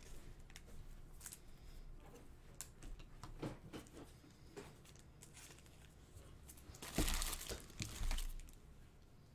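Rustling and crinkling handling noise, with scattered light clicks and a louder stretch of rustling about seven seconds in.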